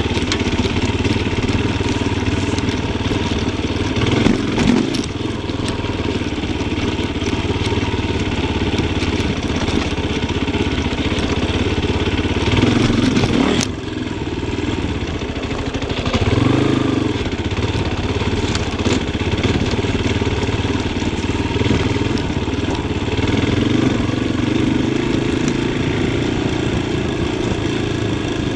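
Yamaha Tricker XG250's single-cylinder four-stroke engine being ridden on a twisty trail, revs rising and falling with several louder bursts of throttle. A sharp knock is heard about fourteen seconds in.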